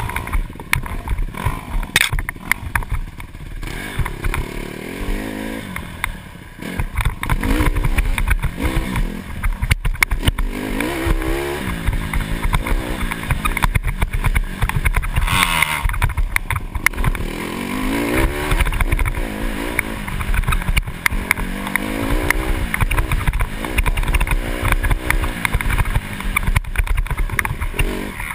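Dirt bike engine revving up and down repeatedly as it is ridden over a rough forest trail, heard from a helmet-mounted camera. Steady low rumble on the microphone, with frequent knocks and rattles from the bumpy ground.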